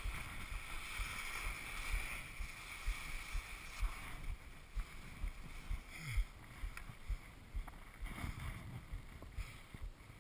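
Skis scraping and sliding over firm snow on a steep descent, a steady hiss that eases about four seconds in, with irregular low thumps of wind and jolts on the camera's microphone.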